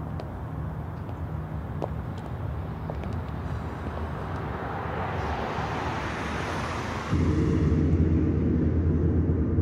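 Street ambience with a low hum and a hiss that swells as a car approaches. About seven seconds in, it switches abruptly to the louder, steady low rumble of a car driving through a road tunnel.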